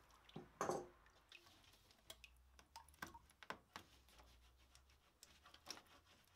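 Near silence with scattered faint clicks and knocks, the strongest about half a second in, as a hand works the rubber bottom hose at the radiator outlet.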